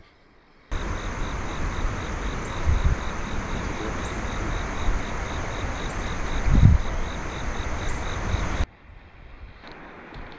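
Loud, steady rushing noise of wind buffeting the microphone. It cuts in suddenly about a second in, swells briefly near the middle, and cuts off suddenly near the end, leaving a quieter hiss.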